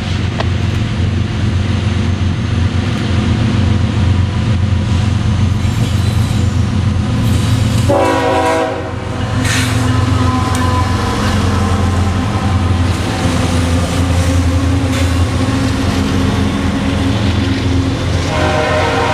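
Loaded coal train's diesel locomotives, GE Evolution-series units and an EMD SD70MAC, passing close by with a steady low engine rumble. A horn sounds for about a second roughly eight seconds in, and the loaded coal hoppers then roll by with a ringing tone coming back near the end.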